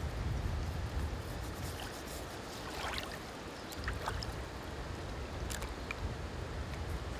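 Steady wash of moving river water, with a few faint light ticks over it.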